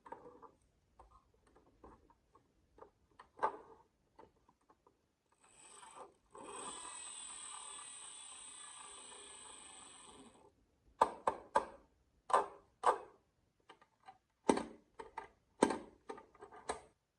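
Glass marbles running down a HABA wooden marble run: scattered light clicks, a steady rolling sound lasting about four seconds in the middle, then a series of sharp wooden clacks near the end.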